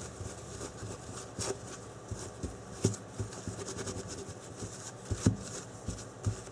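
Paper towel dampened with denatured alcohol rubbing over the tops of a battery pack's cells and soldered bars, scrubbing off flux residue. Light scuffing with scattered small knocks as the pack shifts under the hands; the loudest knock comes about five seconds in.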